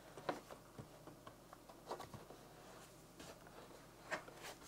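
Faint plastic clicks and knocks from the swivel hinge of a Yoton YD155 portable DVD player's screen as it is turned by hand, a handful of soft taps spread over a few seconds.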